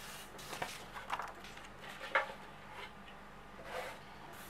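Faint, scattered swishes and rustles of a flat brush spreading PVA glue and of a paper printout being handled, a few soft strokes a second or so apart.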